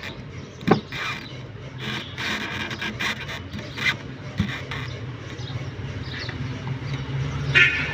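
Hand tools scraping and rubbing against the electric sprayer motor's casing and screws as it is dismantled, with two sharp clicks of metal parts.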